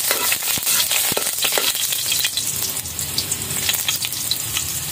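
Chopped garlic sizzling in hot oil in a wok as it is sautéed, with a spatula scraping and clicking against the pan during the first couple of seconds.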